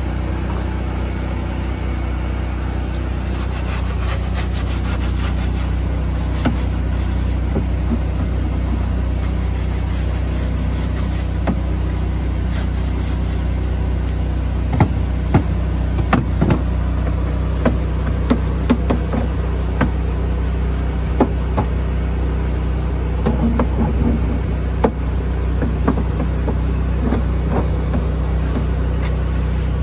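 An engine on the bin-washing rig runs steadily with a low hum, while a long-handled brush scrubs inside plastic wheelie bins, giving rubbing sounds and scattered knocks on the plastic in the second half.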